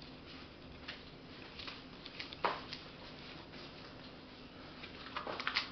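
Scattered light clicks and taps, the sharpest about two and a half seconds in and a quick cluster near the end, over a steady low hum.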